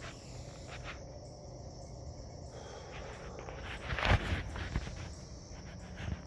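Footsteps and handling rustle while walking over dirt and mulch, with a steady high insect drone behind, like crickets; a louder rustling crunch about four seconds in.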